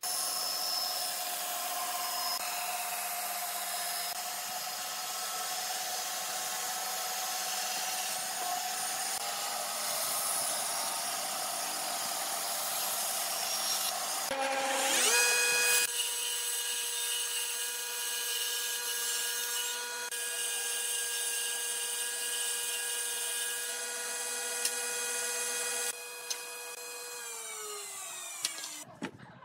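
Bandsaw cutting through wood, the blade rasping steadily through the board. About halfway its motor spins up with a rising whine and runs at a steady pitch, then winds down in pitch near the end as it is switched off.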